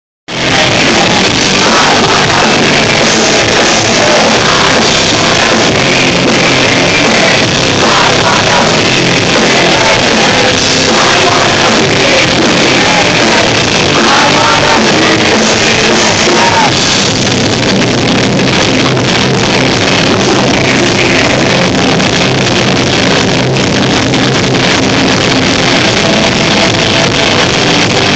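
Rock band playing live with a singer, electric guitars and drums, loud and dense throughout, recorded on a phone so the sound is harsh and muffled.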